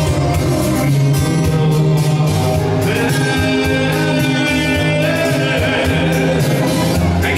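Live band dance music with saxophone and a singing voice.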